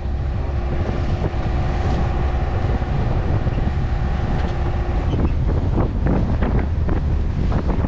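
Wind buffeting the microphone on the deck of a sailboat beating hard upwind, with waves and spray splashing against the hull and deck, the splashing heavier after about five seconds. A faint steady hum runs under it for the first five seconds and then stops.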